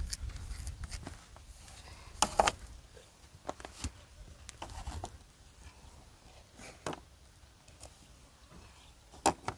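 Ostrich eggs knocking against each other and a plastic crate as they are packed: a few scattered light knocks and clicks, with a low wind rumble on the microphone in the first second.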